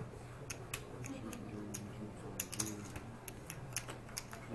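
Poker chips clicking together in irregular sharp clicks, with a quick run of them about halfway through, over a faint murmur of voices.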